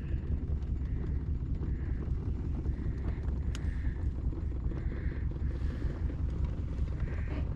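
Small fishing boat under way while trolling: a steady low rumble with wind buffeting the microphone.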